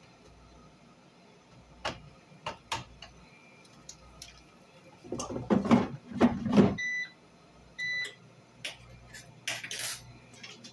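Knocks and rustling close to the microphone, loudest about five to seven seconds in, followed by two short electronic beeps about a second apart, then a few more knocks.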